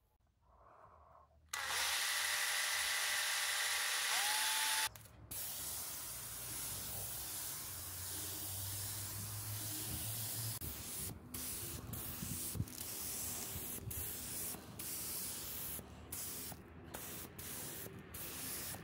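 Gravity-feed compressed-air paint spray gun spraying paint: a steady hiss starts about a second and a half in and is loudest for the first few seconds. It then goes on a little quieter, briefly cut off several times.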